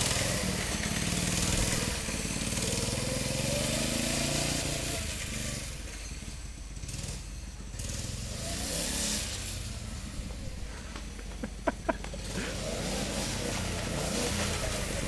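Small single-cylinder Harbor Freight 79cc (2.5 hp) go-kart engine, its governor removed, running as the kart drives laps. The pitch rises and falls as the kart comes and goes, and the sound fades for a few seconds in the middle before it returns. Two sharp clicks come about two-thirds of the way through.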